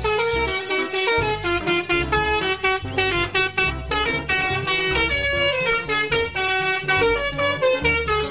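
Multi-tone musical bus horn (Indonesian 'telolet' horn) playing a fast tune, its notes stepping up and down several times a second.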